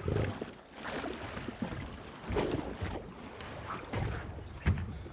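Sea water sloshing and splashing against a rocking lifeboat, coming in irregular surges about once a second, with a few low thuds near the end.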